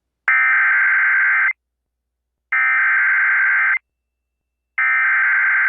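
Emergency Alert System SAME header: three identical bursts of buzzing digital data tones, each just over a second long with about a second of silence between. This encoded header opens a new severe thunderstorm warning.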